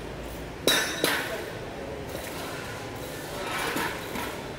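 Two sharp metal-on-metal knocks with a brief ring, about a third of a second apart, then a few fainter clinks near the end: a hand tool striking the metal fittings at the front of a truck cab during repair work.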